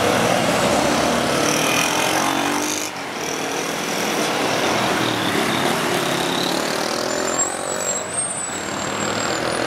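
Rush-hour road traffic: buses and cars passing close by, a steady mix of engines and tyre noise, with a thin high squeal, likely from a bus's brakes, over the last couple of seconds.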